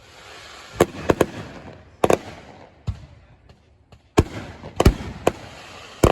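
Fireworks exploding: a string of about nine sharp bangs, some in quick pairs, with crackling and hissing between them.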